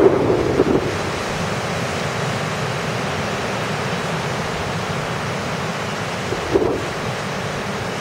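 Rough sea surf, choppy waves breaking and washing in steadily. Wind buffets the microphone, most strongly in the first second and in a short gust a little after six seconds in.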